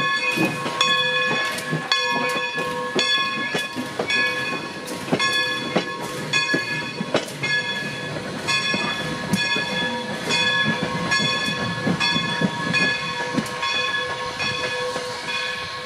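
Steam locomotive's bell ringing in a steady rhythm, a little under two strikes a second, as the engine moves to couple onto its train. A low rumble from the locomotive sits underneath.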